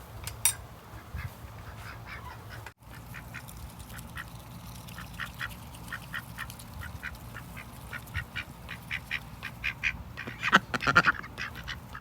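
Birds calling in a long run of short, rapidly repeated calls. The calls break off briefly about three seconds in and are loudest in a burst near the end.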